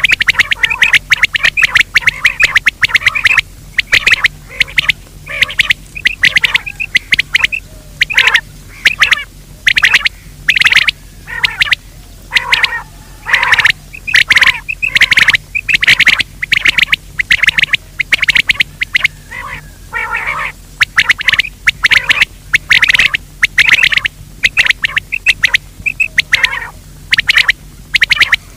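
Grey francolin calling: loud, harsh calls repeated over and over in quick clusters with short pauses between them, over a faint steady low hum.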